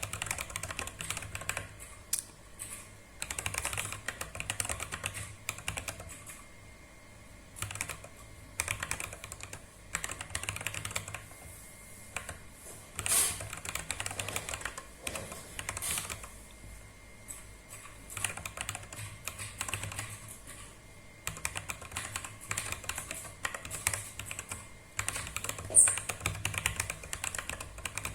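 Typing on a compact 30-key mechanical keyboard: rapid key clicks in runs, broken by short pauses, with an occasional louder single keystroke.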